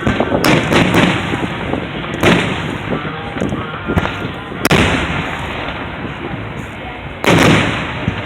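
Aerial fireworks shells exploding: about half a dozen booms a second or more apart, each trailing off, the loudest about seven seconds in.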